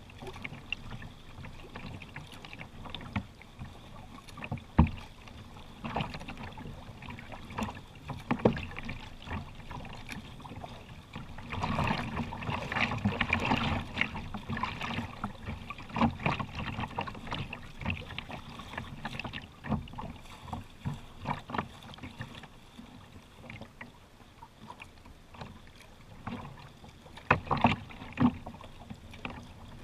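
Water splashing and lapping against a kayak's hull as it is paddled, with irregular splashes from the paddle strokes. The splashing is louder for a few seconds about twelve seconds in, and again near the end.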